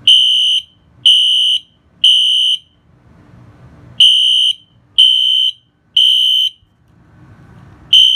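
Fire alarm sounding high-pitched beeps in the temporal-three evacuation pattern: three half-second beeps a second apart, a pause, then three more, with the next group starting at the end.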